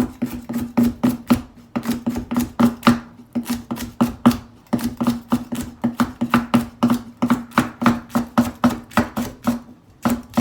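Kitchen knife chopping chilies on a cutting board in quick, even strokes, about four or five a second, each stroke carrying a short ringing note.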